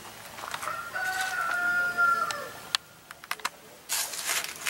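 A rooster crowing once: a single drawn-out call of about two seconds. It is followed by a few light clicks.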